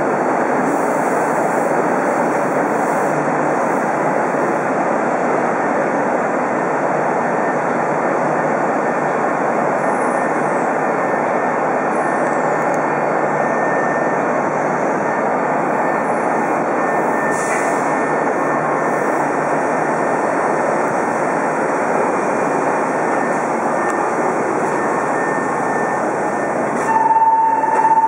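Steady hum and rush of a standing Meitetsu Panorama Super electric train's rooftop air-conditioning and auxiliary equipment, heard at the platform beside the car. Near the end a steady high tone starts.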